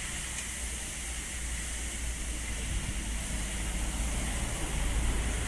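Narrowboat's engine running at low speed as the boat passes, a steady low hum that grows a little louder toward the end, over a hiss of outdoor background noise.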